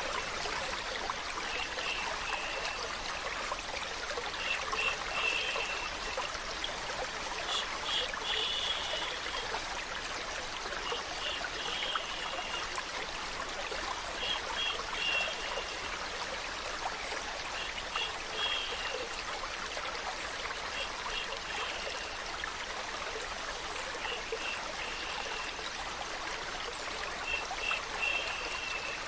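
Water flowing steadily, a stream-like rushing hiss. Short high chirp-like sounds repeat in little groups every two to three seconds.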